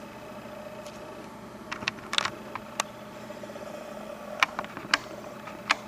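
Close handling noise: scattered sharp clicks and taps from fingers on the camera and the hook and line, in a cluster about two seconds in and again after four seconds, over a steady low hum.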